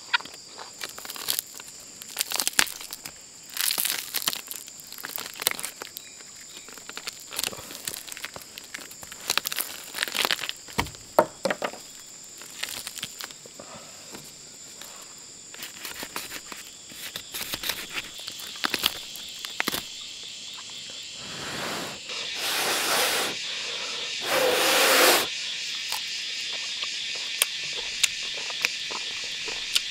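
Forest insects chirring steadily, with many scattered sharp clicks and crackles over them. About three-quarters of the way through, two louder rushing noises swell and fade, and then a lower-pitched insect chorus carries on steadily.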